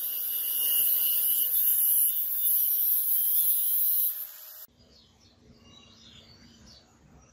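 Angle grinder with a thin cut-off disc cutting through leaf-spring steel: a steady high-pitched whine and hiss that cuts off suddenly about two-thirds of the way through, leaving only faint background noise.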